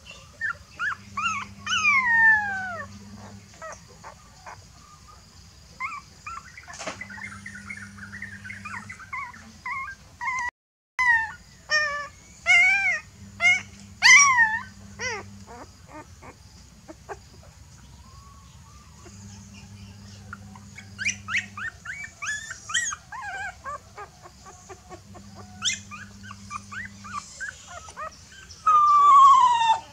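Newborn puppy crying in distress for its mother: clusters of short, high-pitched whimpers and squeals that fall in pitch, ending in one long, loud falling cry near the end.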